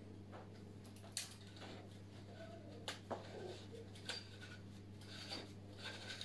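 Shower curtain hooks being fitted onto a metal telescopic shower rod: a few faint, separate clicks spread out over a steady low hum.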